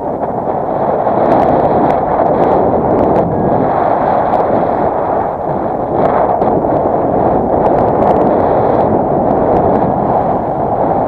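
Strong wind buffeting the camera's microphone: a loud, steady rushing noise that surges in level and drowns out the paraglider's variometer beeping.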